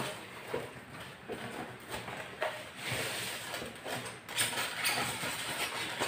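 Cardboard box being opened by hand: flaps and plastic packing rustle, with scattered light knocks. From about four seconds in a louder scraping rustle comes as a foam packing insert is pulled up out of the box.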